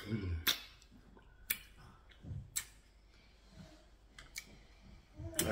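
Wet eating sounds of a man eating pounded yam and soup by hand: sharp lip smacks and clicks every second or so, with chewing between them.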